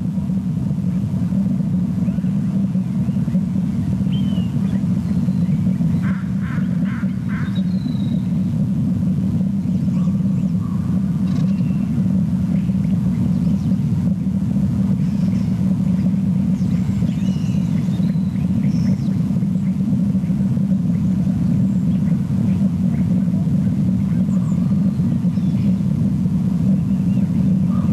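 Steady low rumble with faint, scattered bird calls over it, including a quick run of four short calls about six seconds in.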